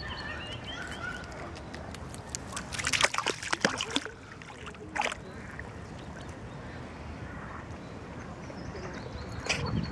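A Shetland sheepdog wading into a lake's shallows, its legs splashing through the water in a quick flurry about three seconds in, with one more splash about a second later.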